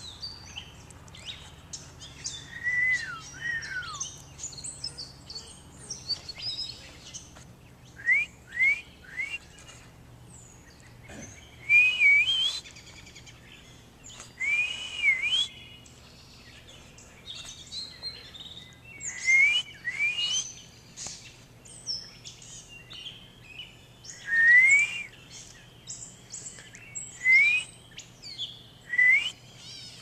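Songbirds singing and calling: clear whistled notes that slur up or down in pitch, delivered in short phrases every few seconds, with higher chirps and twitters between them.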